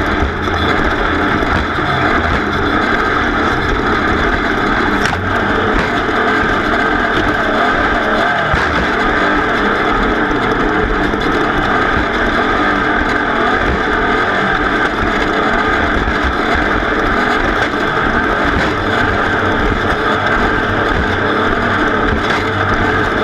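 Racing vehicle's engine running hard at steady high revs.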